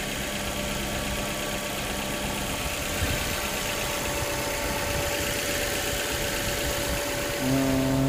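The 2011 Suzuki SX4's 2.0-litre four-cylinder engine idling steadily in the open engine bay, with a faint click about three seconds in.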